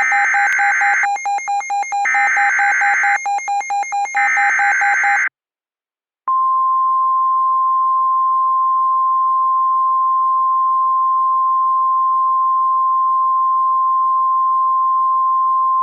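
Emergency Alert System SAME header: about five seconds of screeching digital data bursts. After a second of silence, a steady single-pitch alarm tone near 1 kHz begins, the NOAA Weather Radio warning tone that heralds a new tornado warning.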